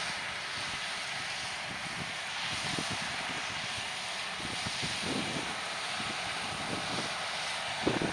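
Harvest machinery running steadily in the field, a continuous engine drone and hiss, with gusts of wind buffeting the microphone.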